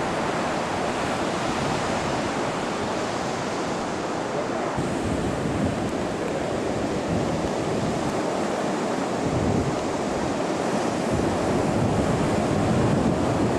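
Ocean surf washing steadily on a beach, with wind buffeting the camcorder microphone now and then as a low rumble.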